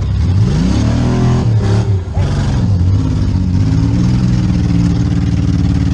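Demolition derby car's engine revving hard, dropping back, then running steadily at high revs.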